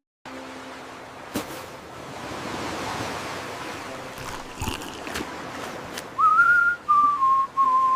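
Ocean surf washing in and out, then about six seconds in a person whistling a few long held notes that step down in pitch.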